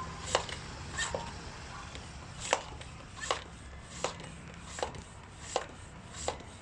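Bicycle hand pump being worked to inflate a 26-inch bicycle tyre's new inner tube. Each stroke gives a sharp click, evenly about every three quarters of a second.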